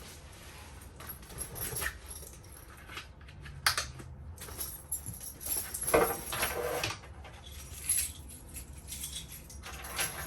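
Handling noises as a sling bag and gear are moved about: rustling with scattered clicks and knocks, loudest about six seconds in.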